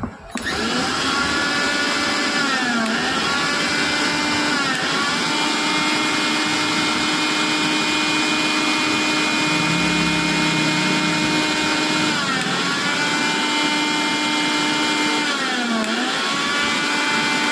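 Kitchen mixer grinder motor starting and running at full speed with a steady high whine. Its pitch dips briefly and comes back up about four times.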